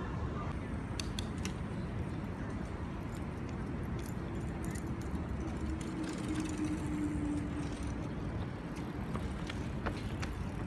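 Street traffic ambience: a steady low rumble of passing road vehicles, with scattered light clicks and jingles.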